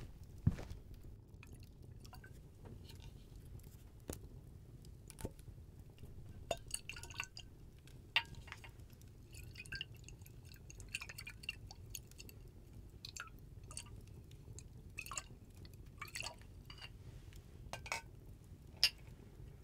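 Faint, scattered clinks and taps of glassware, a few of them ringing briefly, over a low steady background hum; the sharpest tap comes near the end.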